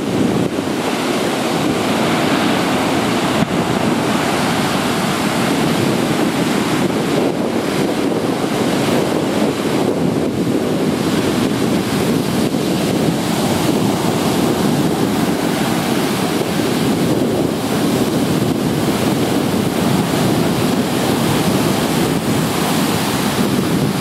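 Heavy storm surf breaking around the piles of a concrete pier and washing up onto a sand beach: a continuous loud rush of churning water.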